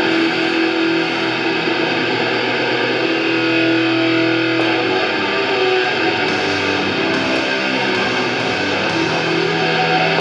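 Background music led by a distorted electric guitar, playing steadily throughout.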